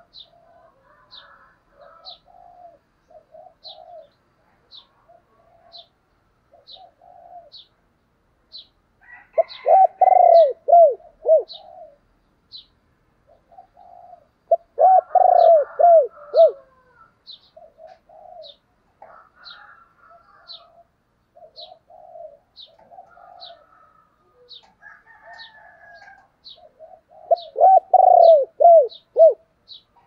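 Caged spotted dove cooing: three loud phrases of quick falling coos, about ten seconds in, about fifteen seconds in and near the end, with softer coos between. A faint high tick repeats about once a second throughout.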